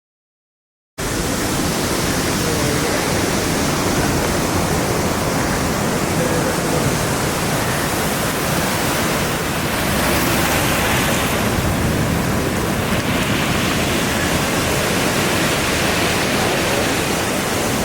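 Sea surf washing on the shore: a loud, steady rushing noise that starts abruptly about a second in.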